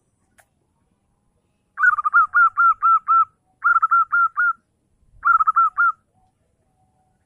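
Zebra dove (perkutut) song: three quick runs of staccato cooing notes, the first the longest, starting about two seconds in.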